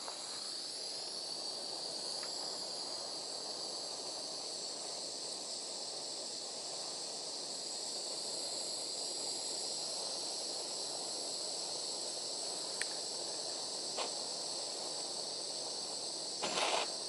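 Handheld butane torch burning with a steady hiss as its flame heats a blob of leaded solder paste to reflow it, with a few faint ticks and a brief louder burst of noise near the end.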